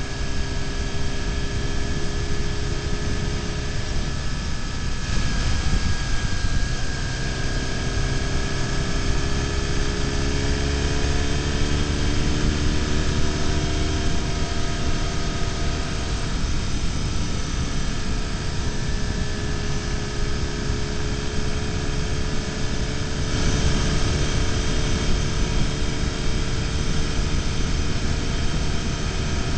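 BMW R1150GS Adventure's flat-twin boxer engine running at road speed under a steady rush of wind on the microphone. The engine note drops about five seconds in, then climbs slowly as the bike picks up speed.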